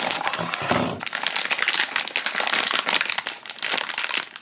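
Foil blind bag from a blind-box figure crinkling steadily as it is handled and worked open at the top.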